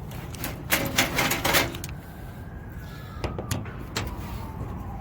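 Sharp metal clicks and rattles, clustered in the first two seconds with a few more knocks later, as the sheet-metal access door of a packaged rooftop HVAC unit is unlatched and handled. Under them is a steady low rumble, and a faint whine slowly falls in pitch from about two seconds in.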